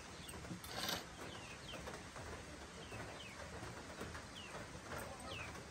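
Small birds chirping faintly, short falling chirps every second or so, over quiet village background. There is one brief sharp clink about a second in.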